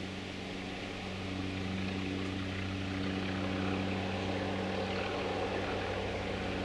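Mainline diesel-electric locomotive working hard under load as it approaches: a steady, deep engine drone that grows louder from about a second in.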